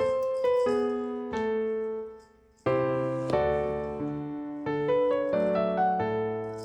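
Background piano music: single notes, a brief pause about two seconds in, then fuller chords with a bass line.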